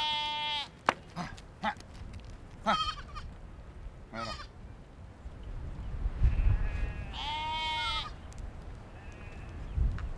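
Goats bleating: a wavering bleat at the start, a few short calls, and another long wavering bleat about seven seconds in.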